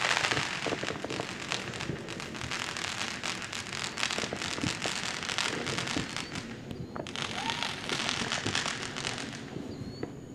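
Consumer fireworks crackling: a dense run of sharp pops and crackles for about seven seconds, a brief break, then a second burst of crackling for about two more seconds.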